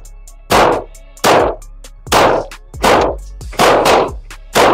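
Handgun fired at an indoor range: about seven sharp shots in a slow, steady string, roughly one every three-quarters of a second, each shot followed by a short tail of echo from the range walls.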